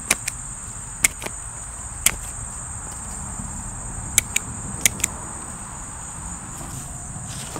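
Hand pruning shears snipping fig cuttings, short sharp clicks mostly in quick pairs, several times. Under them is a steady high-pitched drone of insects.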